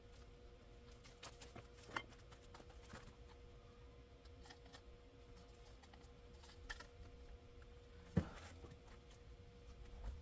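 Faint handling sounds: scattered soft clicks and rustles, a sharper click about two seconds in and a louder knock about eight seconds in, over a faint steady hum.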